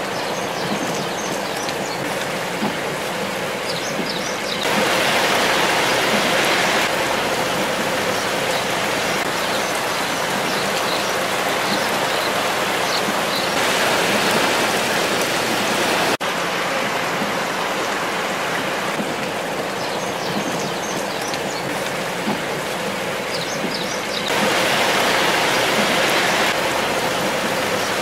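Steady rain falling on wet pavement and puddles, a constant hiss that swells louder twice for a couple of seconds.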